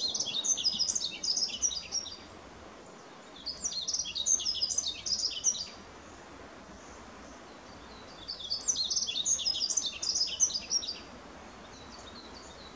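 A male yellow-throated bunting singing three short, quick phrases of high twittering notes, each two to three seconds long, with pauses between them. It is a song sung to attract a mate.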